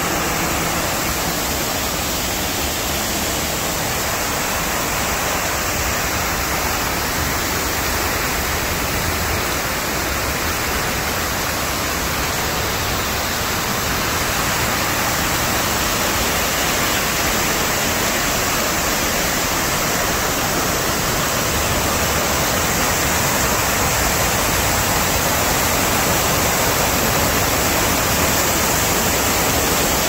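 Man-made waterfall pouring down a stone wall into a basin: a steady, even rush of falling water.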